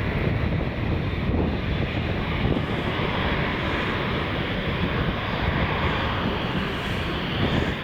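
Jet airliner's General Electric CF34 turbofan engines running with a steady, dense noise, the Embraer 190 of a departing flight; it cuts off suddenly near the end.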